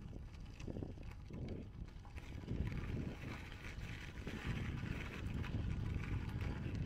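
Bicycle rolling along a dirt and gravel path: tyre noise on the loose surface over a low wind rumble on the microphone, getting louder about two and a half seconds in.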